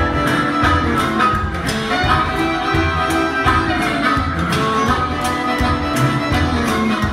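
Live country band playing an instrumental intro: harmonica lead over electric guitars and upright bass, with a steady beat.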